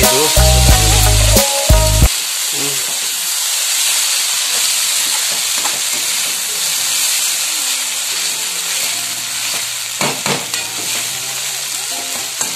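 Food frying in a pan, a steady sizzling hiss. Music with a heavy bass beat plays over it for the first two seconds, then cuts out.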